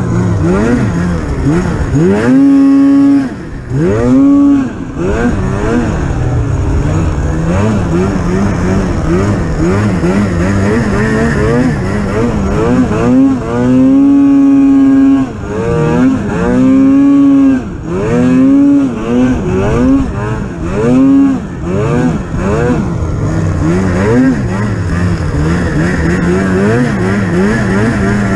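Polaris Pro RMK 800 snowmobile's two-stroke twin engine revving up and down in repeated short throttle bursts, with its pitch swinging high and low many times. The running is steadier near the start and near the end.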